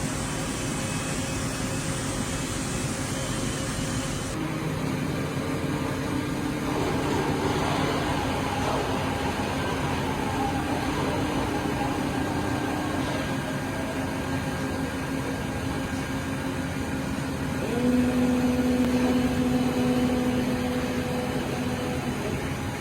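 Ikegai TNC-75 CNC lathe running under power: a steady machine hum with motor whine tones that change several times. A stronger whine comes in about three-quarters of the way through and fades a few seconds later.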